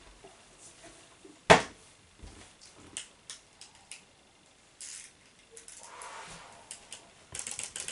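Quiet handling sounds from a toy trunk: scattered small clicks and rustles, with one sharp knock about a second and a half in. Near the end a fast run of clicking starts.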